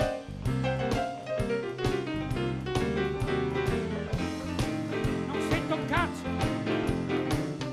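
Live band music: two keyboard players on stage piano and synthesizer over a steady drum beat, in a jazzy, bluesy groove, with a brief bending note about six seconds in.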